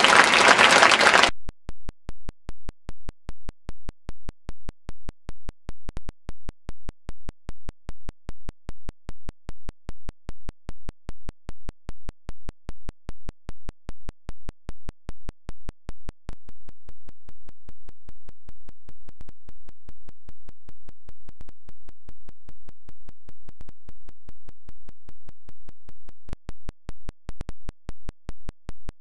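Audience applause cut off abruptly about a second in, replaced by a digital glitch in the recording: a harsh, buzzing electronic tone pulsing on and off about twice a second, holding steady for a stretch in the middle before pulsing again.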